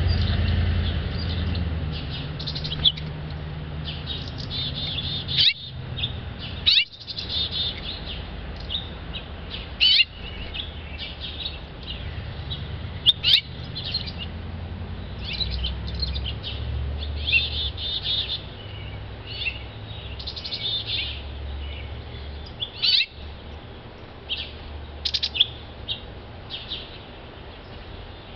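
Small songbirds chirping: many short, high calls scattered throughout, a few louder ones standing out, over a steady low rumble.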